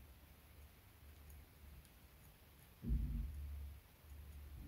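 Faint small clicks and ticks of fine tweezers handling rigging thread on a model ship, with a dull low bump about three seconds in.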